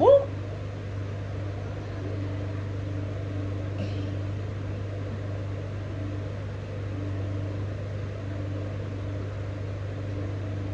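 A steady low mechanical hum, with one brief, loud rising sound at the very start.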